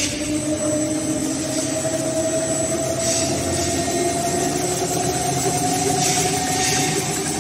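HS1300 plastic film slitter rewinder running, slitting film and winding it onto rolls: a steady mechanical whir with a tone that rises slowly as the machine gathers speed toward 600 m/min. Two brief swells of hiss come and go, about three seconds in and again near the end.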